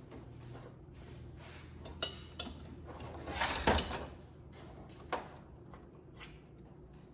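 Small metal parts of a Wilesco model steam traction engine clicking and knocking on a steel workbench as it is handled and taken apart: a few separate knocks, with the loudest cluster about halfway through, over a faint low hum.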